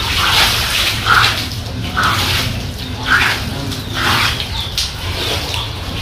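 Bare feet splashing through shallow floodwater on a hard floor, a wet slap about once a second, over a steady low hum.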